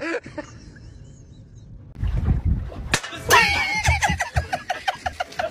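A sharp smack about three seconds in, followed at once by a loud voice crying out with a wavering pitch.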